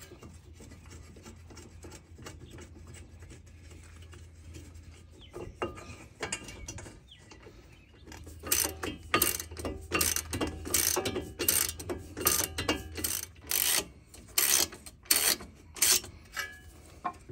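Ratchet wrench tightening the brake caliper bracket bolts from behind the rotor. Faint handling noise comes first, then about halfway in a steady run of ratchet strokes, roughly two a second.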